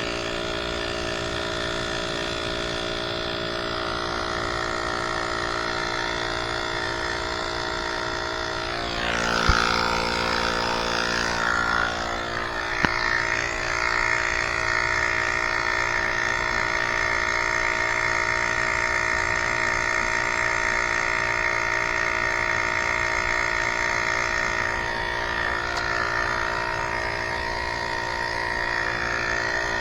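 Small electric air pump running steadily, inflating a bicycle inner tube to test whether it holds air. About ten seconds in, a couple of sharp clicks come with a brief change, and then the motor runs on with a slightly different tone.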